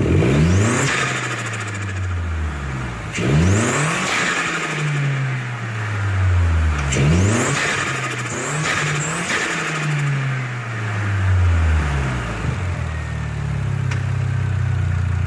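Chevy Sonic's 1.4-litre turbocharged four-cylinder, fitted with an aftermarket blow-off valve, revved several times. Each time the revs shoot up quickly, then fall slowly back toward idle.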